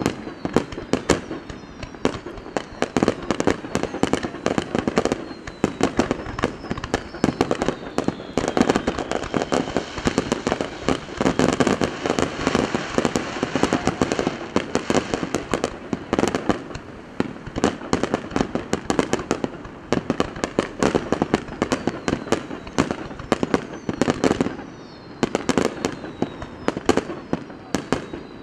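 Fireworks display in full swing: a dense, continuous barrage of shell bursts, bangs and crackling, with thin falling whistles now and then.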